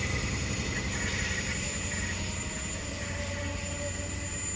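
Diesel train running on the line: a steady engine rumble with rail and wheel noise, easing off slightly towards the end.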